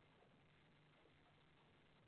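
Near silence: faint steady hiss and low hum of the feeder camera's microphone, with a few faint ticks.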